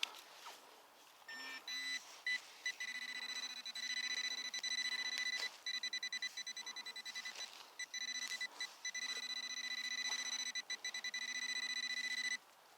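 Metal detector's signal tone sounding over metal: an electronic beep that starts about a second in, runs in long, rapidly pulsing stretches broken by short gaps, and cuts off suddenly near the end.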